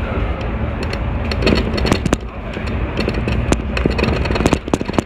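A city bus driving along, heard from inside near the front: a steady low rumble of engine and road, with many sharp clicks and rattles over it.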